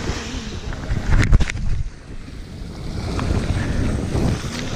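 Wind buffeting the microphone with a heavy low rumble while small waves lap and wash onto a sand-and-shell shoreline. A short, louder bump comes about a second in.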